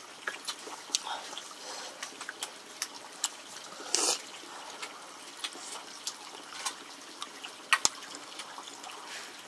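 Water splashing and trickling, with many short sharp clicks scattered through. A brief louder splash comes about four seconds in, and two sharp clicks near the end.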